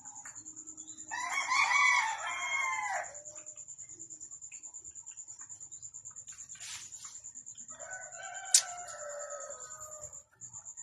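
A rooster crowing twice, each crow about two seconds long and dropping in pitch at the end, over a steady high insect trill. A sharp click sounds during the second crow.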